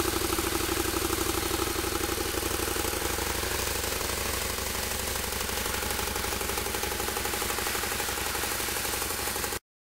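2009 Harley-Davidson V-Rod Muscle's liquid-cooled V-twin idling steadily through its factory exhaust, a fast, even pulse that sounds very weak. It cuts off suddenly near the end.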